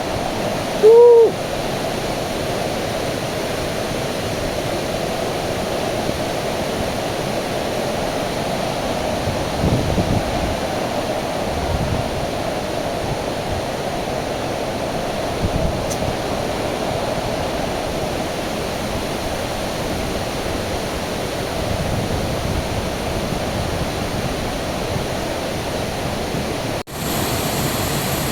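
Steady rushing of a waterfall. About a second in there is one short hooting call.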